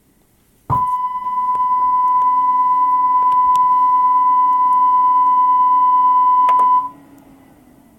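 A 1 kHz sine test tone played at 0 dB through a Sony MHC-EC99i mini hi-fi stereo. It starts suddenly about a second in, holds one steady pitch for about six seconds, and cuts off.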